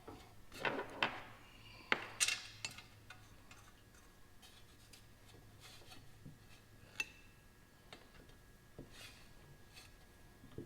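Small metal clinks and taps, irregular, of bolts and hand tools being handled and started into their holes. A few of the clinks ring briefly, and there is a cluster of sharper ones in the first three seconds.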